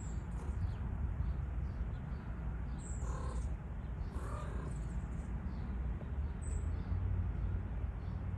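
Outdoor bird calls: two short calls about a second apart near the middle, and a few brief high chirps, over a steady low rumble.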